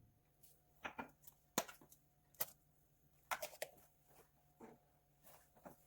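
Scattered light knocks and clicks of objects being handled and set down, a few each second at irregular intervals over a faint steady hum.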